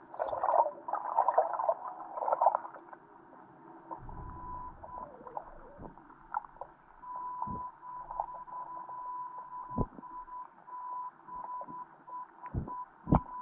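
Muffled sounds picked up underwater by a submerged GoPro in its waterproof housing: a steady high tone that keeps switching on and off, a low rumble about four seconds in, and scattered knocks that crowd together near the end.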